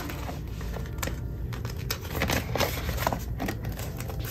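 Paper banknotes and clear plastic binder envelopes being handled: soft rustling with scattered light clicks.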